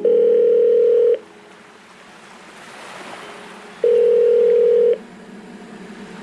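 Background electronic music: two long held synth notes, each about a second, with a soft rushing swell between them.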